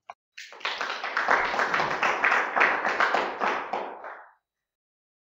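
Applause: many hands clapping for about four seconds, starting about half a second in, fading and then stopping.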